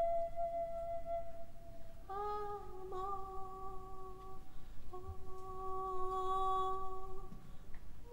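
A woman's voice humming wordlessly in two long held notes at about the same pitch, with a short break between them. A high held tone fades out during the first two seconds.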